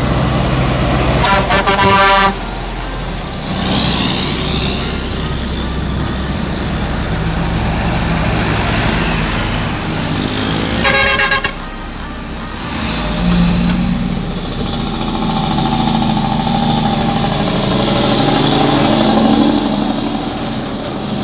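Heavy trucks' diesel engines running as they pass on a mountain road, with two horn blasts of about a second each, one near the start and one about eleven seconds in, each cutting off sharply.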